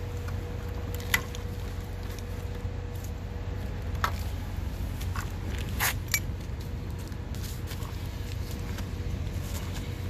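A few sharp clicks and knocks of plastic console trim being handled, two close together about six seconds in, over a steady low background hum.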